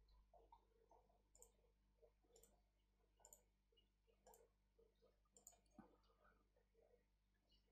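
Near silence, with faint clicks of a computer mouse about once a second.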